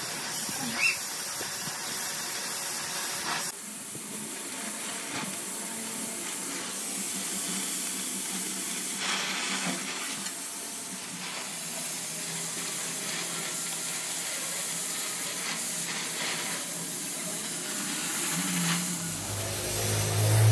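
Gas torch flame hissing steadily as it heats a cracked alloy wheel rim for welding with a filler rod. A low hum comes in near the end.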